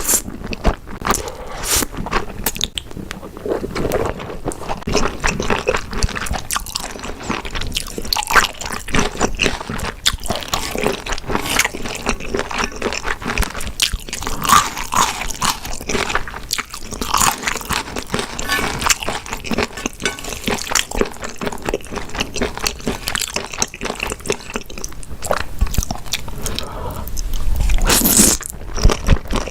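Close-miked eating: a person chewing and biting grilled beef intestines and spicy stir-fried noodles, with a steady run of short, wet, crunchy mouth sounds, louder near the end.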